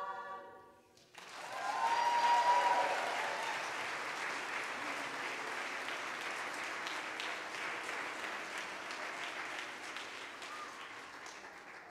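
A women's choir's final sung chord cuts off, and after a brief pause the congregation breaks into applause, with a voice calling out as it begins. The clapping is loudest in the first couple of seconds and slowly dies away.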